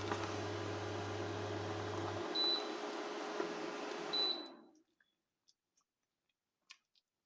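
A kitchen appliance running with a steady hum, giving two short high beeps; soon after the second beep its noise winds down and stops, leaving only a few faint clicks.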